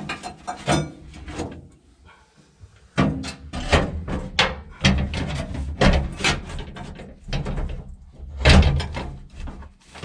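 Knocks, rubbing and clunks as a B&M floor shifter's rubber boot and lever are pushed and worked into place in a truck's floor cover. The knocks come thick and irregular from about three seconds in, with the loudest thump near the end.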